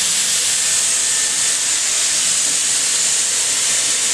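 Dyson Airwrap running with its long curling barrel attached: a loud, steady rush of air blowing out through the barrel.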